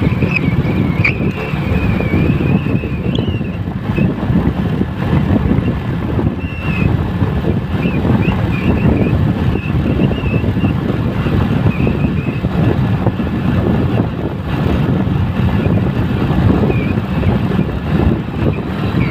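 Steady engine and road noise of a moving vehicle, heard from on board as it drives along a wet road. A faint, wavering high tone comes and goes above the rumble.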